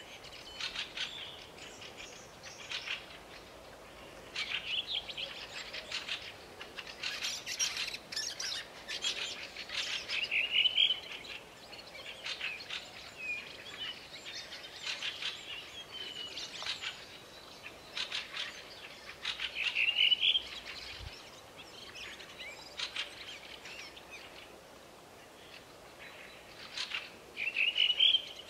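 Wild songbirds singing, with repeated song phrases of fast trills. Several phrases end in a short rising flourish, and the loudest phrases come about every nine seconds.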